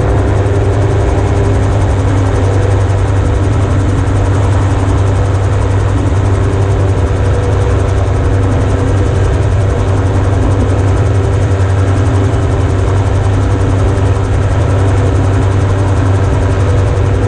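The 2003 Yamaha RX1 four-cylinder engine of a single-seat amphibious gyroplane running steadily and driving its propeller and rotor, an even, unbroken drone.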